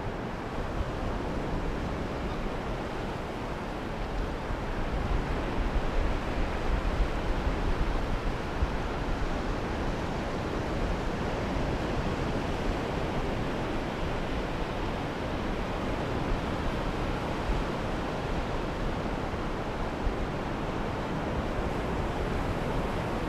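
Sea surf washing in steadily, mixed with wind rumbling on the microphone, with a few stronger gusts about five to nine seconds in.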